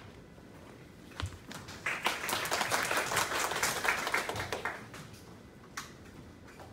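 Small audience applauding, dense clapping that starts about a second in, lasts about four seconds and dies away, followed by a single sharp knock.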